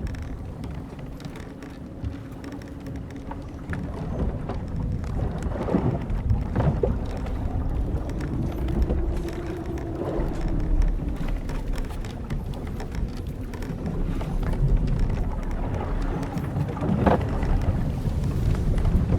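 Old wooden sailing ship at sea: a steady low rumble of wind and waves, with the hull timbers and rigging creaking now and then. Near the middle comes one long creak or moan that rises and falls in pitch.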